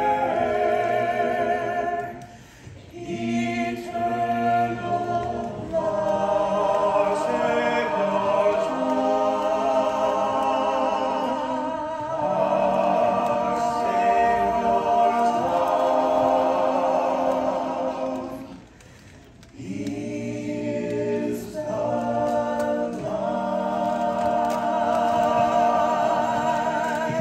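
Small mixed vocal ensemble of men and women singing a hymn a cappella in harmony, holding sustained chords, with two short breaks, about two and a half seconds in and near nineteen seconds.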